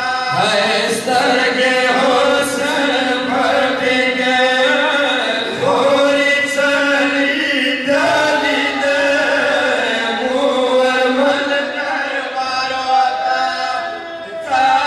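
Several men's voices reciting a Pashto noha together into microphones: a chanted lament sung in long drawn-out phrases, with a short break between lines near the end.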